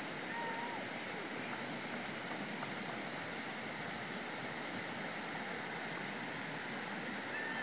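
Steady rushing outdoor background noise, even throughout, with a couple of faint brief chirps near the start and again near the end.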